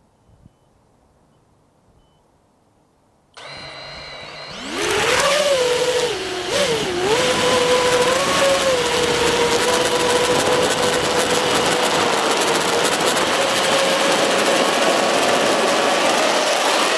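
Emax Buzz racing quadcopter's brushless motors: near silence at first, then the motors spin up at idle about three seconds in and, a second later, throttle up for take-off into a loud, high whine that wavers in pitch for a few seconds and then holds steady in flight, over a rushing of air.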